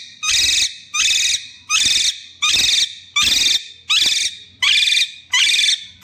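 Indian ringneck parakeet giving a loud, rapid run of about eight harsh screeching calls, roughly three every two seconds. The owner reads the calling as the bird being cross.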